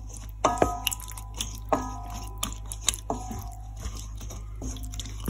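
A wooden spatula tosses a wet, saucy pig-ear salad in a stainless steel bowl, making soft squelching sounds. Roughly every second and a half the spatula knocks against the bowl, which rings briefly after each knock.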